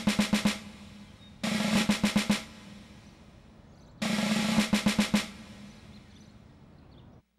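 Three short snare-drum rolls in the cartoon's music score, each about a second of rapid hits, spaced a couple of seconds apart.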